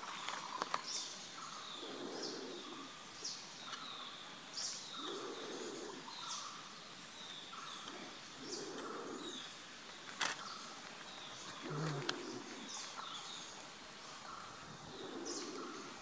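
Forest birds calling: a low call repeats about every three seconds, with higher short calls in between. A single sharp click comes about ten seconds in.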